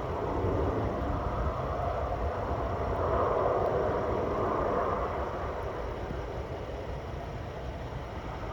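Jet airliner coming in to land, its noise swelling to a peak a few seconds in and then fading, over the low rumble of wind on the microphone.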